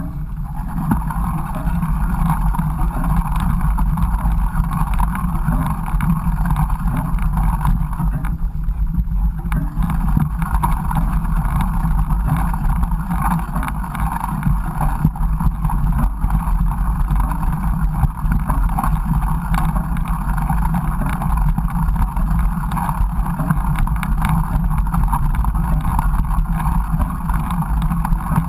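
Mountain bike ridden along a trail, heard through an action camera: steady rumbling ride noise with wind buffeting the microphone.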